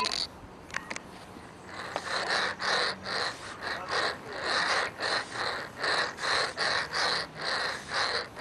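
A person breathing hard and fast close to the microphone, quick even breaths about two a second starting about two seconds in, after a short knock at the start.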